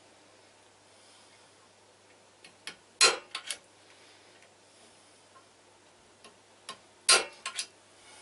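Automatic centre punch snapping as it fires against a steel bar to mark drilling spots. There are two sharp snaps about four seconds apart, each followed by a few lighter clicks.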